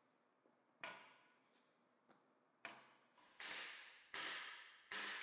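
Metal knocks from a seal removal bar worked through the axle tube of a Dodge Ram AAM 9.25 front axle, driving out an inner axle shaft seal. Two single sharp knocks come in the first few seconds, then three louder clanks near the end, each with a short ringing tail.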